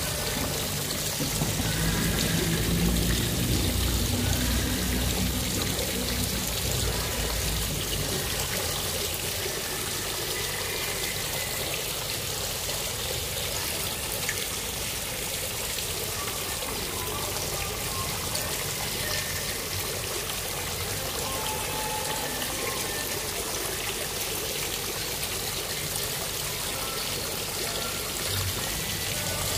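Fountain water falling and splashing into its basin: a steady, even rush of pouring water.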